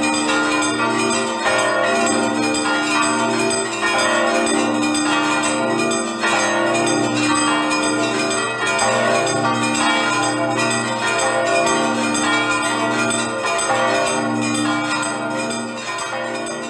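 Church bells ringing, repeated strokes over a sustained hum, fading out near the end.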